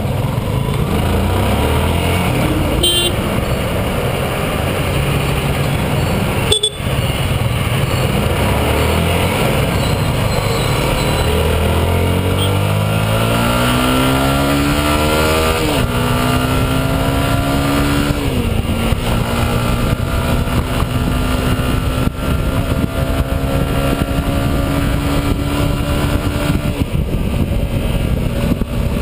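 Stock Yamaha R15's 150 cc single-cylinder four-stroke engine heard from a handlebar-mounted camera while riding, accelerating through the gears. The revs climb, drop at two upshifts a couple of seconds apart, then hold steady at cruising speed. There is a single sharp knock about a quarter of the way in.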